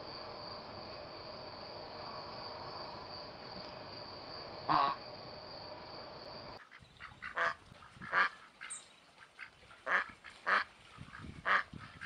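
Steady recording hiss with a single loud, short squawk about five seconds in. After a cut just past halfway, mallard ducks quack in a run of short, loud calls, about six of them.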